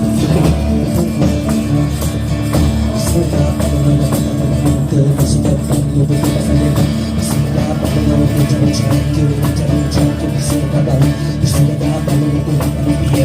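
Music: sustained low droning tones with quick, light percussive strikes over them.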